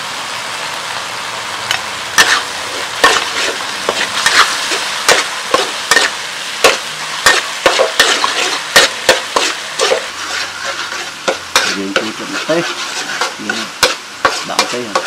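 Metal spatula scraping and clacking against a metal wok while stir-frying, over a steady sizzle of frying food. The scrapes start about two seconds in and come irregularly, one or two a second.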